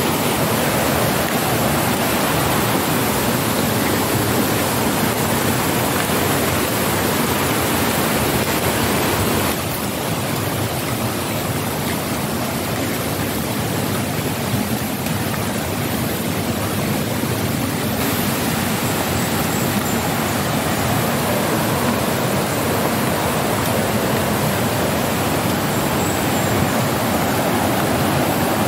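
Steady rush of a mountain stream flowing fast over rocks, dipping slightly in level about a third of the way in.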